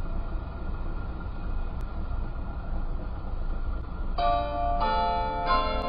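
A steady low rumble of background noise, then about four seconds in tower bells start ringing: three strikes of different pitch roughly half a second apart, each note ringing on into the next.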